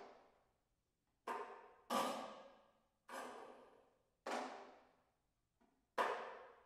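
Snare drum struck with sticks in single, widely spaced strokes, each ringing out and fading before the next: about five loud hits, two of them close together after about a second and again near the end, with one faint tap among them.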